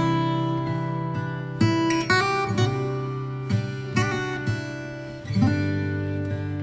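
Background music: acoustic guitar strumming chords, with a new chord every second or two.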